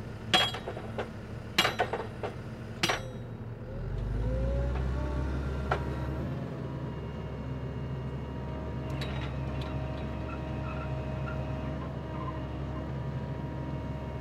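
A few sharp metal clanks of steel tooling on the Geoprobe 8040DT drill rig, then about four seconds in the rig's engine and hydraulics come up under load with a brief rising whine and run steadily.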